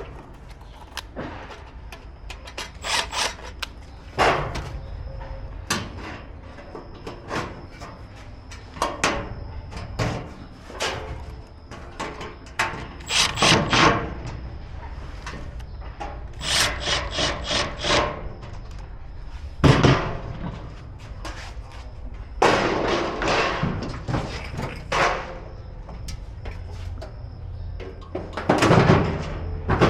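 Gas grill parts and hand tools being handled during assembly: irregular knocks, clatter and rubbing, with a few short bursts of rapid, evenly spaced clicking, over a steady low hum.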